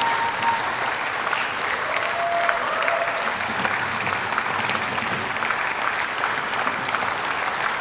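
Sustained applause from the House members, steady clapping throughout.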